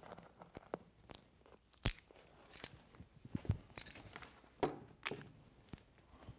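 Small metal tools and hardware clinking as they are picked up and set down, a string of separate sharp clicks, some with a short high ring; the loudest clink comes about two seconds in. A couple of duller thumps fall between them.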